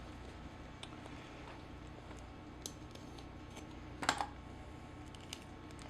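Scattered light clicks and taps from handling at a workbench, with a louder clack about four seconds in.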